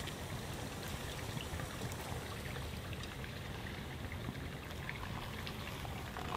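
Small wood fire burning on a portable camp grill: a steady hiss with a few short crackles. Near the end, hot water begins pouring from a kettle into a paper coffee filter.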